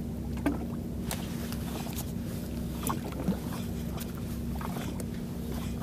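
A small fishing boat's steady low drone with a constant hum, and a few light clicks and taps as a small metal jig and its hooks are handled on an ultralight spinning rod.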